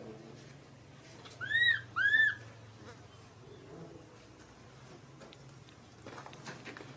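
Infant macaque giving two short cries about half a second apart, each rising then falling in pitch.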